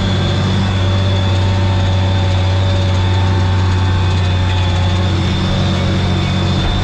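Tractor diesel engine running steadily under load while pulling a harrow, heard from inside the cab. It makes a constant low drone with a faint high whine over it.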